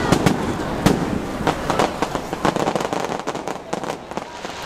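Aerial fireworks shells bursting overhead: a few sharp bangs in the first second, then a dense run of rapid crackling pops that thins out near the end.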